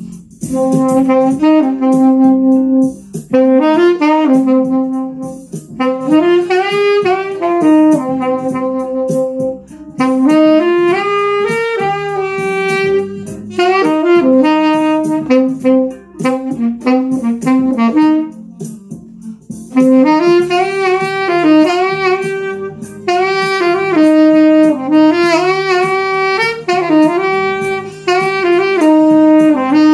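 Mendini by Cecilio nickel-plated B-flat tenor saxophone played in melodic phrases, with notes sliding up and down between pitches and short breaks between phrases.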